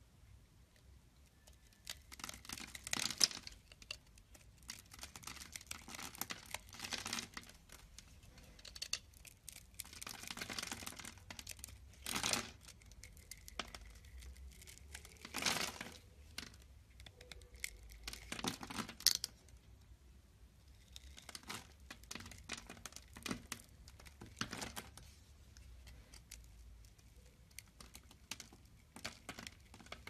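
Utility-knife blade cutting and scraping through a bar of dry soap: irregular crisp crunches and scrapes as small cubes and slivers break off, with a few sharper, louder cracks among them.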